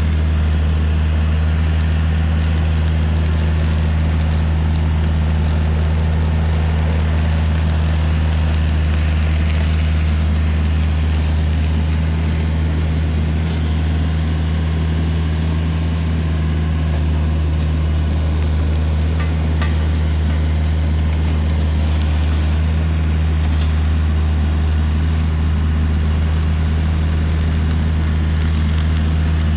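Volvo EC35C mini excavator's diesel engine running steadily, driving a RUT hydraulic brush mower head working through brush. A constant low hum with no break or change in pitch.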